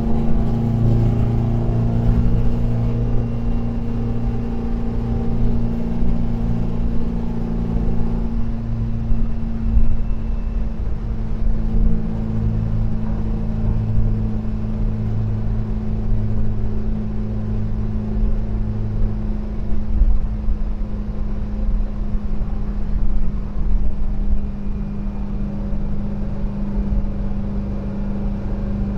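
The freshly rebuilt air-cooled flat-four engine of a 1973 VW Devon camper van running under way on the road: a steady drone with a low rumble. About eight seconds in, its higher tones fade.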